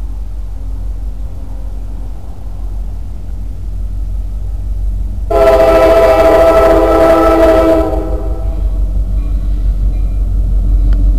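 One long blast of a diesel locomotive's air horn, starting about five seconds in and lasting about two and a half seconds. Under it runs a steady low rumble that slowly grows louder.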